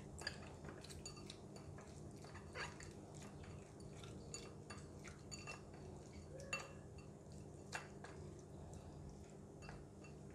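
Raw shell-on prawns being mixed by hand in a small glass bowl: faint, scattered clicks and light taps of shells, fingers and a spoon against the glass, a few slightly louder.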